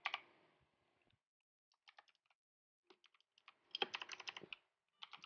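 Keystrokes on a computer keyboard as a terminal command is typed: a few scattered key clicks, then a quicker run of keystrokes about three and a half seconds in.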